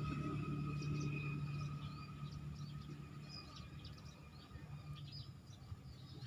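Many small birds chirping over rural swamp ambience. A low steady hum is loudest at first and fades away about five seconds in.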